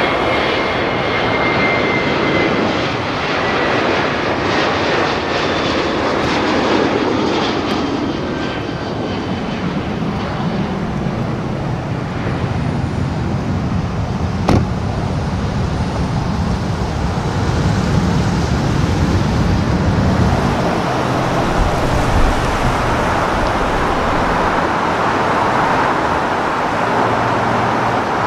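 Boeing 737 jet engines at full takeoff thrust as the airliner lifts off and climbs away: a loud roar with a high whine falling in pitch over the first several seconds, the roar then fading. A lower, steadier aircraft rumble takes over in the later part.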